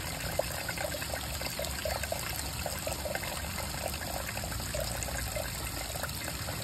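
Thin stream of flushing water from a Suzuki DF140 outboard's coolant outlet trickling into a plastic measuring beaker: a steady patter of small splashes. It is the low flow through the engine's cooling passages with a garden hose on the flush port and the engine not running.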